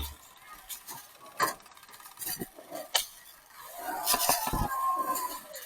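Scattered sharp clicks and knocks, a few strong ones about a second and a half in and at three seconds, with faint distant voices calling around four to five seconds in.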